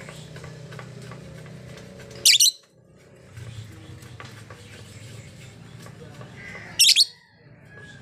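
Female blue masked lovebird giving two short, shrill calls about four and a half seconds apart, over faint chatter and a low steady hum.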